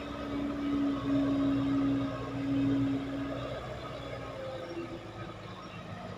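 Heavy diesel earthmoving machinery running: a low rumble with a steady humming tone that fades out a little past halfway.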